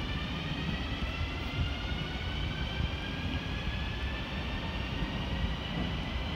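Electric passenger train pulling away from a station: a whine of several tones rising slowly in pitch as it gathers speed, over a low rumble of the running gear.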